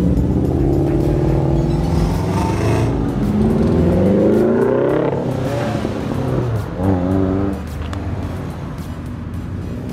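Car engine revving, its pitch climbing and dropping several times as it is run up and let back down.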